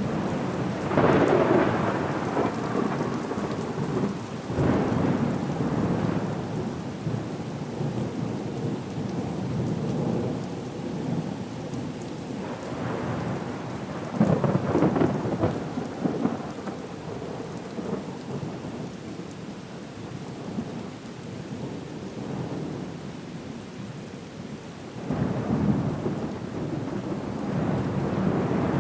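Storm ambience: steady heavy rain with several rolls of thunder that swell and fade, the loudest about a second in, around fourteen seconds in and again near the end.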